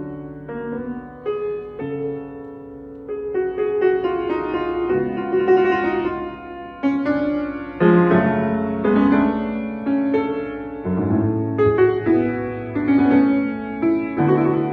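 Piano music: chords and a melody played at a moderate pace, the notes struck and left to ring.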